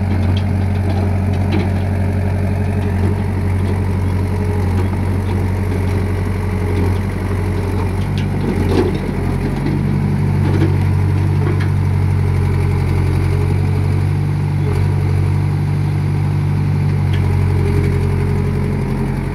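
Caterpillar E70 hydraulic excavator's diesel engine running steadily while the boom and bucket work. Its note shifts about eight seconds in, with a few light knocks around that point.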